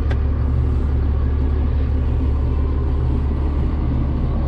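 Tractor engine running steadily, heard from inside the cab as a loud, even low drone.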